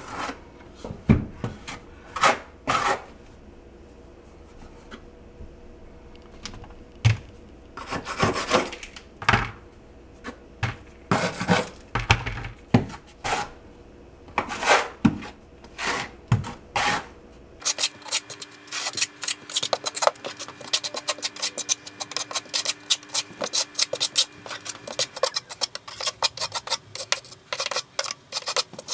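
Steel V-notch trowel scraping thinset mortar across a wall, spreading and combing it into ridges. For the first two-thirds the strokes come singly, a second or more apart; then they turn into rapid, dense scraping.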